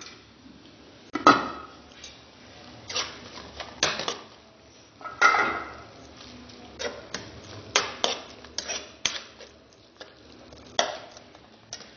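Metal spoon stirring and scraping a thick onion-and-tomato masala in a metal pot, in irregular strokes with clinks against the pot's side; the loudest strokes come about a second in and around five seconds in.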